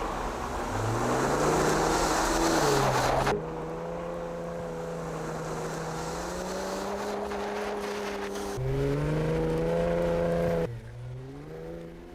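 A 2021 Ford F-150 Raptor's twin-turbo 3.5-litre EcoBoost V6 pulls, its pitch rising and then holding steady, with a loud rushing noise over it for the first few seconds. Its note changes abruptly twice, as if cut between drive shots, and it rises again about three-quarters of the way through.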